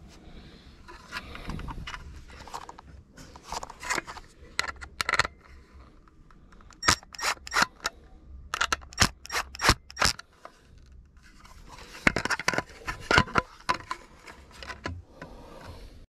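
Close handling noise from a masthead TV aerial amplifier in a black plastic housing: scraping and a run of sharp plastic clicks in three clusters as the housing and its cover are worked and fitted.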